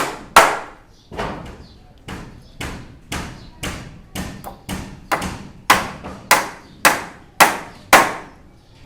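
Hand hammer blows on metal at a steady pace of about two a second, each strike ringing briefly as it dies away. Some blows are lighter in the middle and heavier near the end, and they stop shortly before the end.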